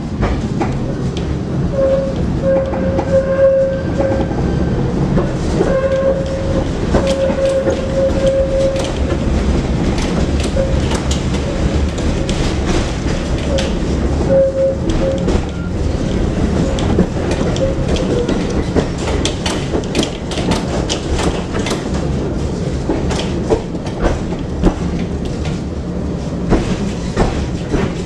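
Tram running along its track, a steady rumble with frequent clicks and knocks of the wheels over rail joints, coming thicker in the second half. A whining tone comes and goes over the first half.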